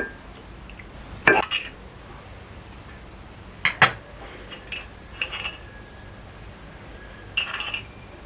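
Cutlery and crockery clinking: a handful of separate short clinks and knocks of metal utensils against dishes, a double one about four seconds in.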